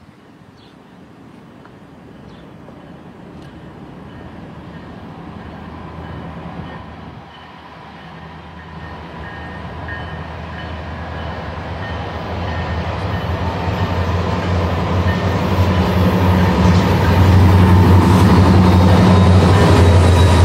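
Norfolk Southern freight train's diesel locomotives approaching, their low engine drone growing steadily louder until the lead units pass close by near the end.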